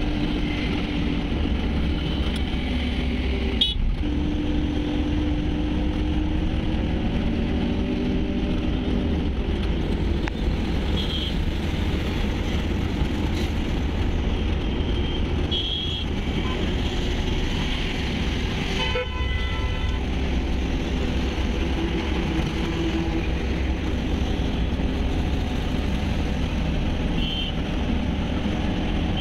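Steady low engine and road rumble heard from inside a moving truck's cab, with a few short vehicle-horn toots. The clearest toot comes about two-thirds of the way through.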